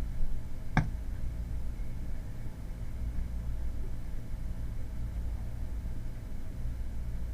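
Steady low hum from the recording setup, with one short sharp click about a second in.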